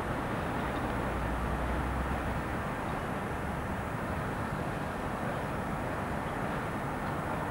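Steady rumble and hiss of distant road traffic, with wind buffeting the microphone.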